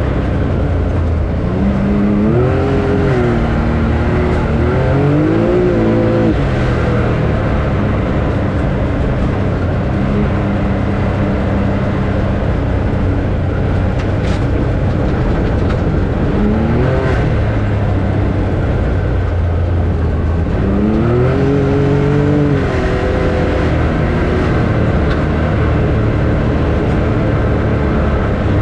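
A motor vehicle under way, with steady loud road and engine rumble. The engine's pitch climbs and drops a few times, early on, around the middle and again past two-thirds through, as it speeds up and changes gear.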